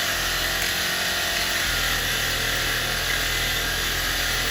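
Motor-driven wire brush wheel running steadily with a steel box spanner held against it, scouring corrosion off the tube.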